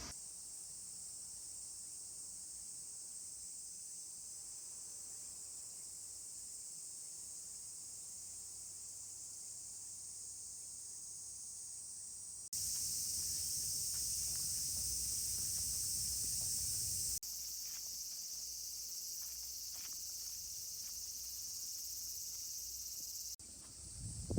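Steady, high-pitched chorus of insects, a continuous shrill hiss. Its loudness jumps abruptly a few times, louder for several seconds past the middle.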